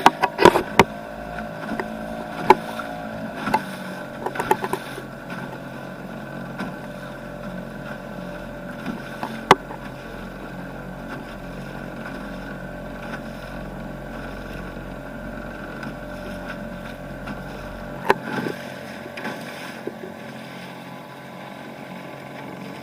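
A 1997 Nissan 3.5 hp two-stroke outboard on a canoe running steadily at very low throttle. Its note dips slightly about three seconds in, then holds. A few sharp knocks stand out over the engine, several in the first seconds and two more later.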